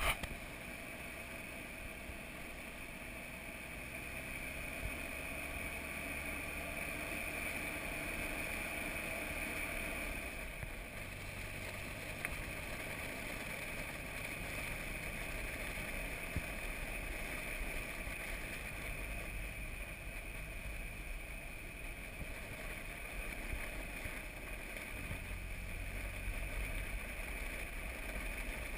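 4x4 driving across a dry salt pan, heard from the bonnet: a steady engine drone with tyre and wind noise, the engine note climbing gently over the first ten seconds or so.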